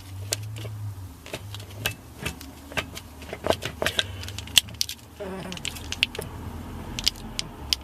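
Gear lever of a Mk1 Mazda MX-5 being worked through the gears with its new knob: a rapid, irregular run of metallic clicks and clunks over a low steady hum.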